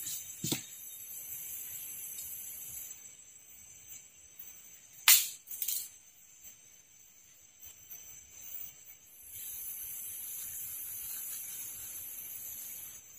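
A night chorus of rainforest insects chirring steadily in high, continuous tones, with a few sharp cracks. The loudest crack comes about five seconds in.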